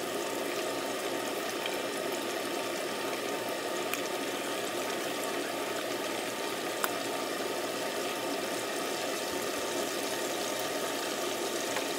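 Curry cooking in a pot on the stove, a steady bubbling hiss, with a couple of small clicks.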